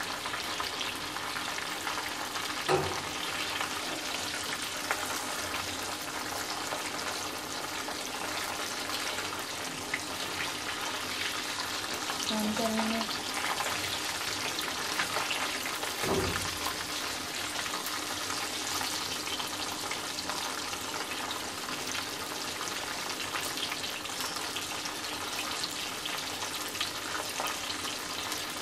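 Chicken wings sizzling steadily in shallow, bubbling oil in a wok, the steady hiss of frying. Metal tongs knock sharply against the pan twice, about three seconds in and again a little past halfway, as the pieces are turned.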